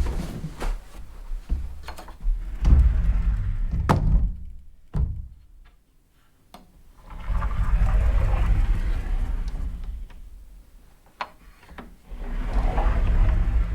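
Sliding closet door rolled back and forth along its track several times: each slide is a rumbling run of a few seconds, with sharp knocks as the door hits its stops or jamb.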